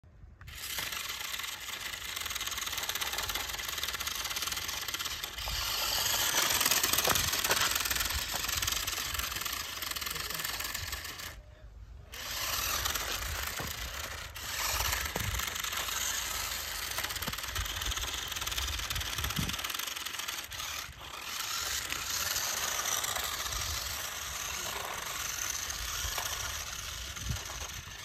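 Toy remote-control cars driving on asphalt, their small electric motors and plastic gearboxes whirring continuously, with a brief break about eleven seconds in.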